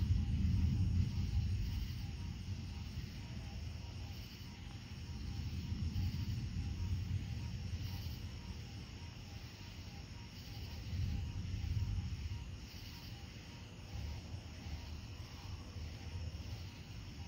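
Distant thunder rumbling low in slow swells: loudest at the start, then again about six seconds in and around eleven seconds in. Night insects chirp steadily over it.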